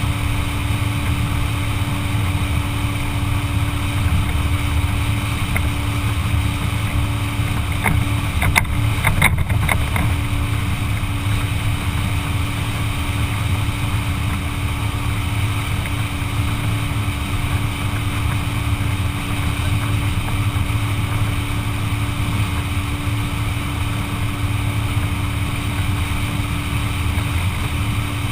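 Motorboat engine running steadily under way, a constant low drone with rushing noise over it. A short cluster of sharp knocks comes about eight to ten seconds in.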